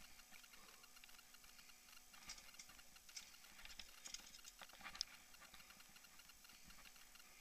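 Faint, irregular clicks and rattles of a mountain bike and its handlebar-mounted camera jolting over a dirt trail, thickest in the middle and sharpest about five seconds in, over a low hiss.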